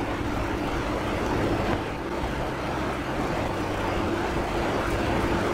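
Thick egg korma gravy sizzling in oil in a kadai while a wooden slotted spatula stirs it, over a steady low hum.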